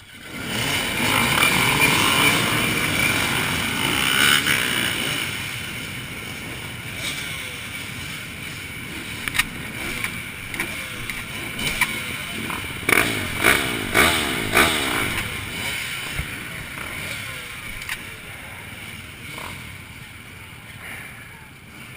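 Several motocross bike engines go loud and full-throttle all at once, then slowly fade away, with a cluster of sharp revs about thirteen to fifteen seconds in.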